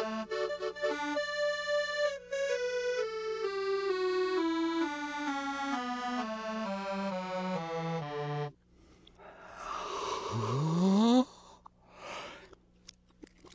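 Music played backwards: a run of reedy, accordion-toned notes stepping steadily downward in pitch, stopping about eight and a half seconds in. After a short gap comes a breathy call that glides upward, also reversed, then a brief rustling sound near the end.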